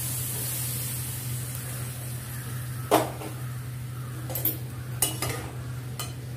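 Metal spoon clinking against a steel wok as raw banana koftas are stirred into simmering gravy, with a brief sizzle at the start. There are several sharp clinks, the loudest about three seconds in, over a steady low hum.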